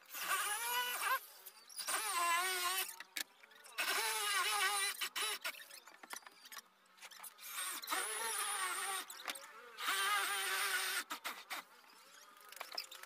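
Corded electric drill boring holes into an HPL-faced plywood door panel for the concealed hinges: five separate runs of about a second each, the motor whine wavering in pitch as the bit cuts, with a longer pause in the middle while the jig is moved.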